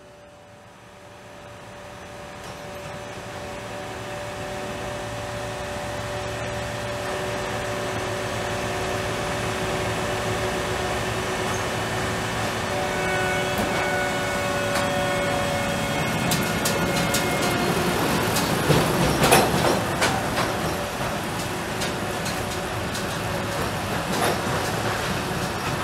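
Slow-moving track-renewal work train carrying concrete sleepers passing close by: a steady mechanical hum with several held tones grows louder over the first several seconds. From about two-thirds of the way in come rapid clacks and knocks of wheels on the rails, loudest in a burst about three-quarters of the way through.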